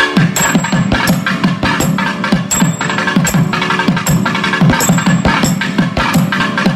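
Thavil drum solo: fast, dense strokes with deep bass strokes that drop in pitch, about three a second, over a faint steady drone.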